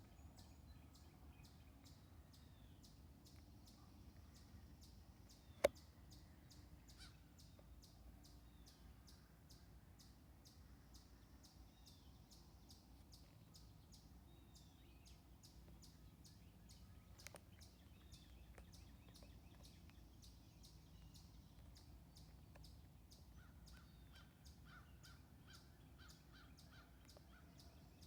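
Faint outdoor nature ambience: birds calling, over a fast, even high ticking. Two sharp clicks stand out, about six seconds in and about seventeen seconds in.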